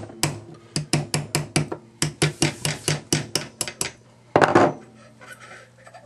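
Small hammer tapping a punch in quick, even strikes, about five a second, driving out the latch pin of a Badger Ordnance ambidextrous AR-15 charging handle. A single louder clatter follows near the end.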